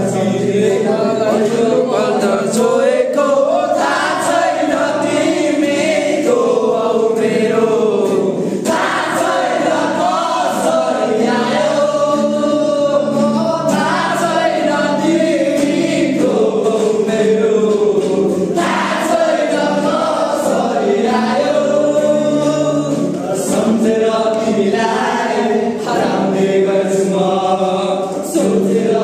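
A group of young men singing a song together, loud and unbroken, to a strummed acoustic guitar.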